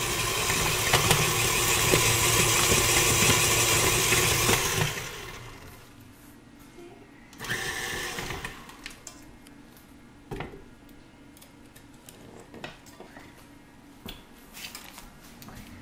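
Electric hand mixer running steadily in a bowl of brownie batter, switched off about five seconds in. After that, a few light knocks and clinks of utensils against the bowl.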